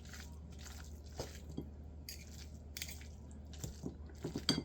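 Two forks shredding tender slow-cooked beef in a pot: soft wet squishes and light clicks at irregular intervals, with a quick cluster of strokes near the end.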